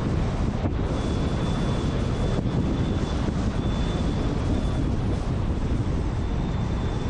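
Steady road and wind noise of a car driving at speed on paved road, a continuous low rumble with no change in pace. A faint thin high whine comes and goes over it.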